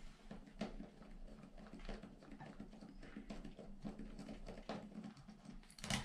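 Faint, irregular clicks and light taps of a hex driver working out the small screw that holds the rear drive shaft in the diff cup of a nitro RC truck, with a slightly louder clatter near the end.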